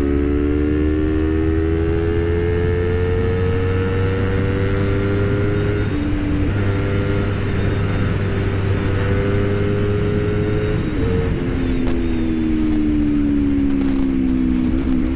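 Honda CBR250RR's parallel-twin engine pulling at high speed, its note rising slowly for the first six seconds and then holding steady. About eleven seconds in the throttle closes and the pitch falls as the bike slows, with a brief blip near the end.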